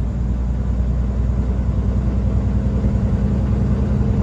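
Semi truck's diesel engine running steadily at highway speed with road and tyre noise, heard from inside the cab as a continuous low drone.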